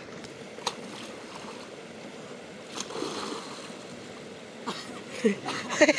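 River water running and splashing around swimmers as a steady wash, with a single sharp click a little under a second in.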